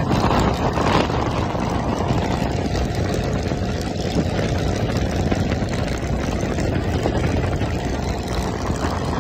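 Steady engine and road noise from a vehicle travelling at speed along a highway, heard from on board, with no sudden events.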